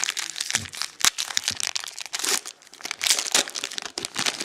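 Trading-card pack wrapper being torn open and crinkled by hand, with irregular crackling and a sharp snap about a second in.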